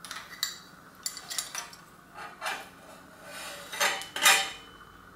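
Metal parts of a bicycle headset clinking and rattling as it is taken apart and the fork is pulled down out of the head tube. Light clinks come first, then louder metallic rattling about four seconds in.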